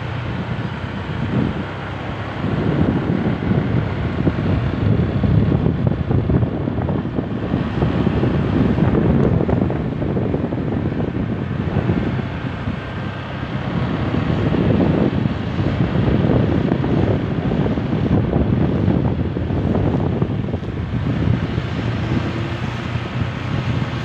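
Wind buffeting the microphone of a moving motorcycle, swelling and easing every few seconds, over the steady hum of the motorcycle's engine.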